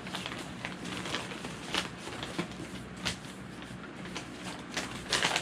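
Wrapping paper rustling and crinkling as it is pulled open inside a cardboard gift box, in irregular bursts, the loudest near the end.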